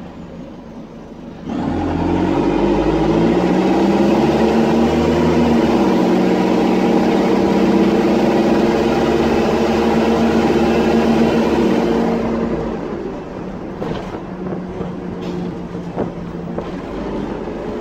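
Dennis Dart SLF bus's diesel engine heard from inside the cabin. It runs quietly, then opens up loud about a second and a half in as the bus pulls away, the note rising and stepping down once about six seconds in, before easing off to a quieter run about twelve seconds in. The loud note comes from a blown exhaust.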